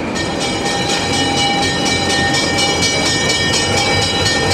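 Narrow-gauge diesel locomotive moving past with its bell ringing in steady, rapid strokes. It starts suddenly just after the beginning and rings over the low running of the engine.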